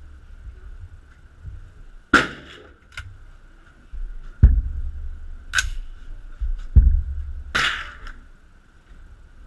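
Rifle shots echoing in an indoor shooting range: about six sharp reports, irregularly spaced, a faint steady high tone underneath.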